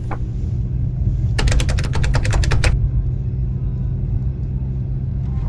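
Steady low mechanical rumble with a humming drone, broken about a second and a half in by a quick run of about ten sharp clicks lasting just over a second.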